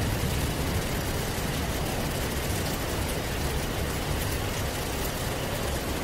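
Heavy rain pouring steadily, with a low rumble of thunder underneath that fades down in the first second.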